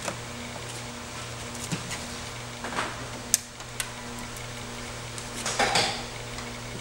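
Plastic wiring connectors on a massage chair being handled and unplugged: rustling scrapes of wire and plastic, two sharp clicks a little past the middle, and more rustling near the end. A steady low hum runs underneath.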